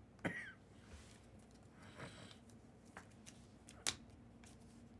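Trading cards being handled on a table: a few light taps and clicks with a brief slide of card on card, separated by quiet gaps.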